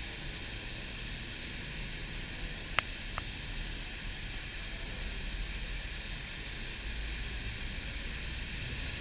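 Steady hiss and low rumble inside a moving city bus in the rain: rain and wet-road tyre noise over the drone of the bus engine. Two sharp clicks come close together about three seconds in.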